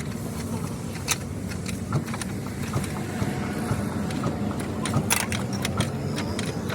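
Workshop noise: a steady low machine hum with scattered metal clinks and knocks, several of them close together near the end.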